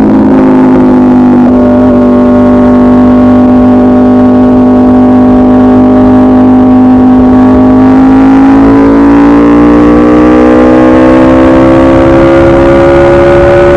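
A 2016 Aprilia RSV4 RF's V4 engine, very loud through an SC Project CRT exhaust with the catalytic converter removed. It holds a steady note for about seven seconds, then climbs smoothly and steadily in pitch as the bike accelerates, with no gear change.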